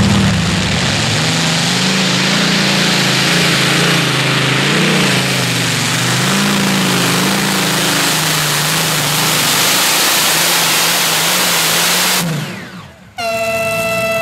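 Modified pulling tractor's engine running loud and hard as it hauls the weight sled down the track, its pitch wavering up and down. The sound fades out near the end, and a steady whine with several pitches starts.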